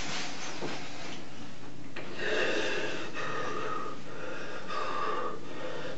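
A distraught man crying with his face in his hands: gasping breaths at first, then from about two seconds in a run of short sobs one after another.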